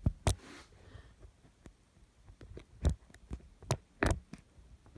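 Camera being set down and handled: irregular knocks and thumps, the loudest just after the start and around three and four seconds in, over a faint low hum.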